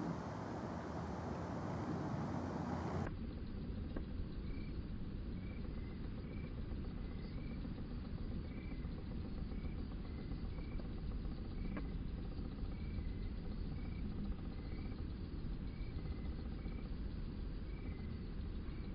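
Outdoor background noise with a faint high chirp repeating rapidly and regularly, typical of an insect. About three seconds in, the audio drops to quarter speed: the noise turns to a low rumble and the chirps become slower and lower, about two a second.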